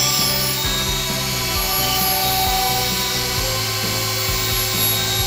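Electric drill running steadily, spinning a polishing pad that compounds a plastic headlight lens.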